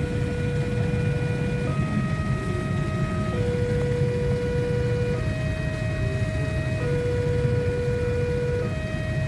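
Railway level-crossing warning alarm sounding a two-tone signal, switching between a lower and a higher note about every two seconds, the sign that a train is approaching. Underneath runs a steady low rumble of idling motorcycles.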